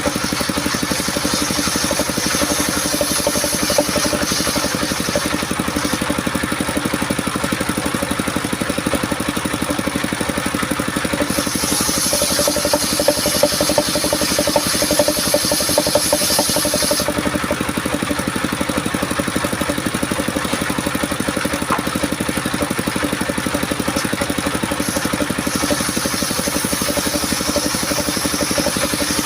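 Engine driving a homemade circular saw rig, running at a steady speed. A brighter high hiss rises for about six seconds midway.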